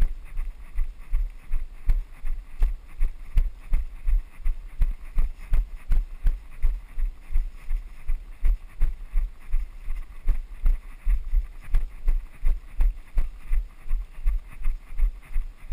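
Running footsteps on a dirt trail: a steady run of heavy thuds, about three a second, with the camera jolting at each stride.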